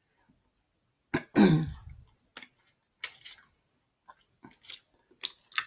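Close-miked eating: a short throaty vocal sound with a falling pitch about a second in, then wet lip smacks and mouth clicks while snow crab meat dipped in sauce is eaten and fingers are licked.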